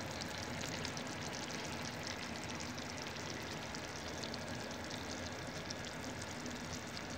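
Water in a pan on a gas stove heating toward the boil: a steady hiss with many faint quick ticks of small bubbles forming.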